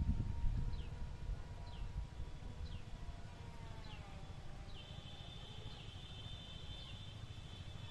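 Outdoor ambience: a low rumble of wind on the microphone, with short high falling chirps repeating about once a second and a steady high whine that joins about halfway through.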